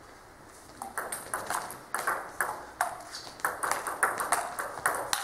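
Table tennis rally: the ball clicking in quick succession off the bats and the table, several ticks a second, starting about a second in.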